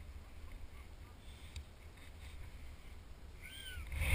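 Quiet outdoor ambience with a low wind rumble on the microphone; near the end one short whistled call rises and falls in pitch.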